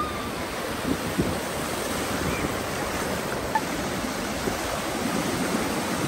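Ocean surf washing up the shore in a steady rush, with a few short splashes from feet wading through shallow water and wind buffeting the microphone.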